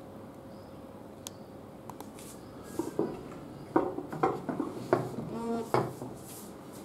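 A dress form being turned around on its stand: a run of knocks and clatters, with a short creak about two-thirds of the way through.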